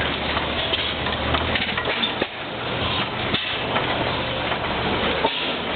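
Antique hit-and-miss stationary gas engine running, its heavy flywheels spinning, with a steady mechanical clatter and a few sharp beats at uneven intervals.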